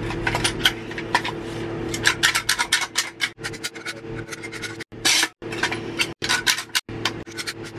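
Caulking gun in use: a run of sharp clicks, rubbing and scraping as caulk tubes are loaded and the trigger is worked to squeeze caulk into a seam. A steady low hum runs underneath, and the sound cuts off abruptly several times.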